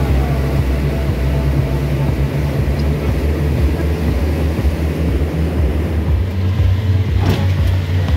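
Fishing boat's engine running steadily under way, a low drone with wind and water rushing past. A single short knock about seven seconds in.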